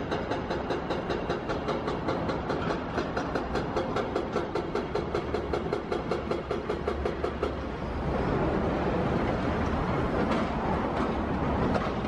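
Train running on nearby tracks, its wheels clacking over the rail joints about four times a second. From about eight seconds in it becomes a louder, steadier rumble.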